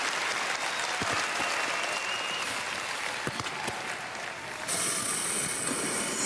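Arena audience applauding, an even clatter of many hands. About three-quarters in, a brighter high hiss joins in.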